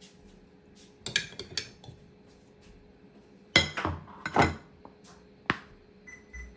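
Kitchen dishes and cutlery clinking and knocking: a few scattered clinks about a second in, then two louder knocks with ringing, one after three and a half seconds and one after four and a half, and a single click a second later.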